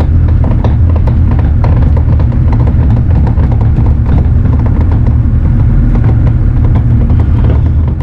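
Bobcat mini excavator's diesel engine running loud and steady, heard from inside the open cab, with a low drone and faint clicks over it while the control levers are worked.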